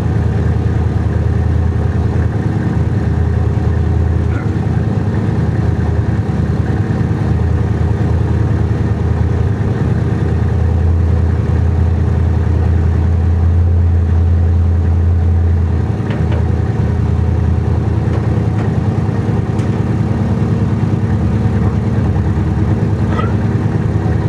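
Air compressor running steadily with a deep hum, building up air pressure for the locomotive air horn.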